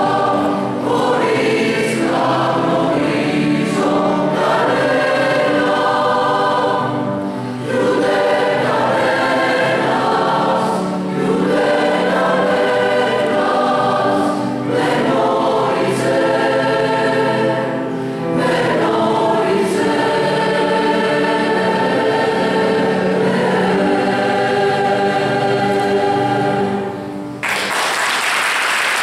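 Mixed choir singing with piano accompaniment in long sustained chords, the phrases separated by short breaths. The singing ends near the end, and the audience breaks into applause right after.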